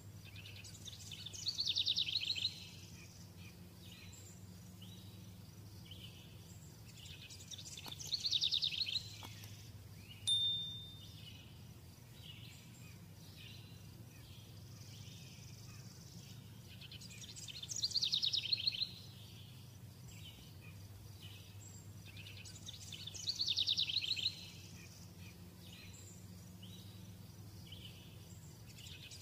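A bird's fast trill, falling in pitch over about a second, sung four times several seconds apart over a faint steady hum, with one short high ping about ten seconds in.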